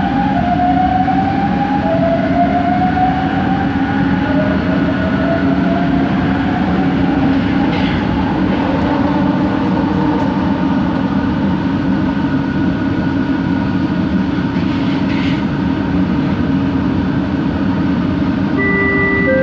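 Bombardier Innovia ART 200 train running, heard from inside the car: its linear induction motor drive whines in pitch steps that rise over the first few seconds over a steady hum and rumble, then settles into a steady drone. Near the end, a few clean steady tones begin.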